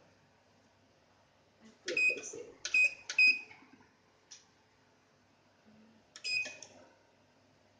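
Short electronic beeps from a beauty machine's control panel as its buttons are pressed: three quick beeps about two seconds in and one more about six seconds in, each with a light button click.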